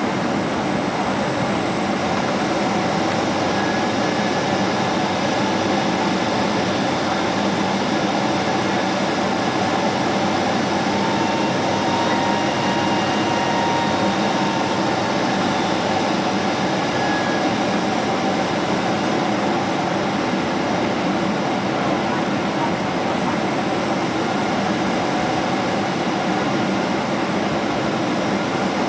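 Steady cabin noise inside a Boeing 777 airliner on approach: an even rush of airflow and engine hum with a few faint steady tones.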